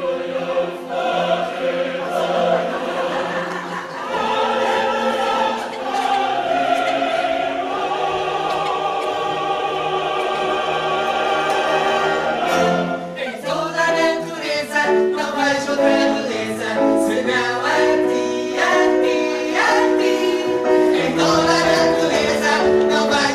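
Choral music with a choir holding long sung notes; about thirteen seconds in, it changes to a quicker piece of short, rhythmic notes.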